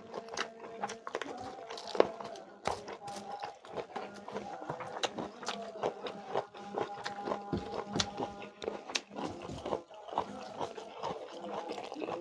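A person eating chicken curry with rice: irregular wet chewing, smacking and biting clicks.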